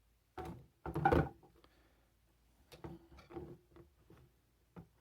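Hand tools being handled and set down: a few short knocks and rattles, the loudest about a second in, then a lighter run of clicks in the middle.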